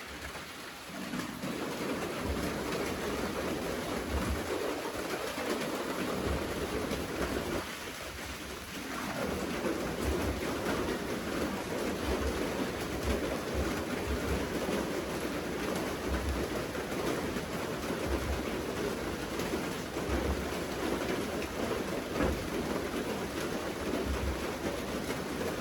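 Steady rain falling, with short irregular low thuds.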